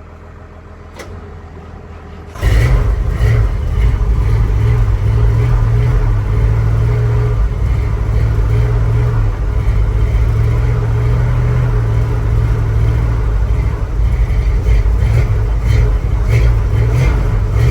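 A 1976 Ford F-150's 360 V8 catches about two and a half seconds in and keeps running loudly but not very happily. It is a first start after two years of sitting, with fuel only just reaching the carburetor.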